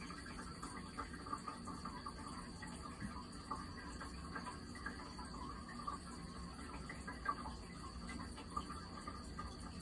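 A thin stream of water trickling from a toilet tank's hand-wash spout into the basin, with many small irregular splashing ticks.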